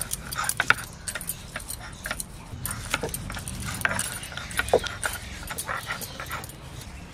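Ginger and garlic being ground into paste on a flat stone slab with a hand-held grinding stone (sil-batta): gritty scraping strokes with sharp clicks, many in the first second and fewer after. A brief squeak comes just before five seconds in.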